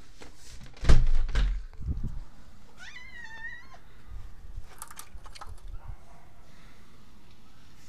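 Domestic tabby cat giving one drawn-out, wavering meow about three seconds in. A loud knock with rustling about a second in is the loudest sound.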